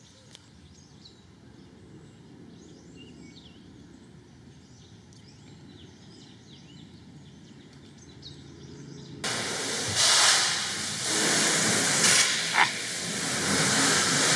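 Quiet for about nine seconds, then a garden hose's spray nozzle comes on suddenly with a loud, steady hiss, jetting water into the empty plastic tank through its access hatch.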